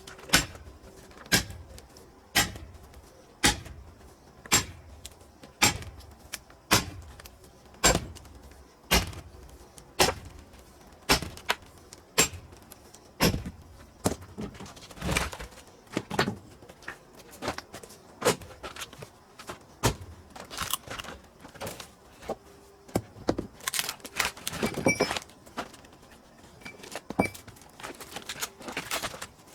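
Sharp, evenly paced strikes on pine firewood, about one a second for the first half, then irregular lighter knocks and clatter of wood.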